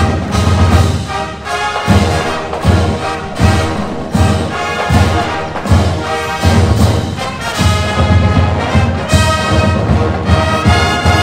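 A marching band playing: loud brass over a steady beat of low drum hits.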